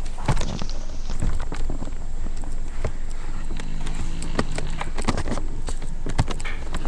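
A woman snoring, with one drawn-out snore about halfway through, over a steady low rumble and scattered clicks.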